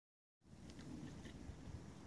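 Faint background noise: silent for the first half second, then a low rumble with a few faint, short high ticks.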